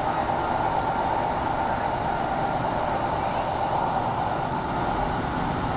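Steady running noise of a diesel passenger train heard from inside the carriage: an even rumble and rolling noise with no distinct clicks or changes.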